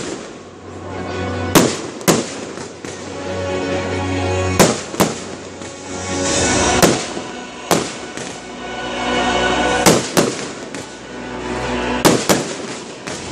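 Fireworks display: shells burst in sharp bangs about every second or two, some in quick pairs, with crackling between them. Music with sustained notes plays underneath.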